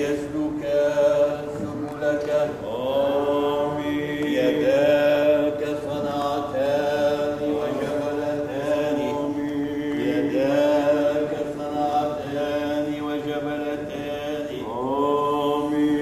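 Orthodox liturgical chant from the baptism rite: one melodic line with long held notes, sliding up into each new phrase every second or two.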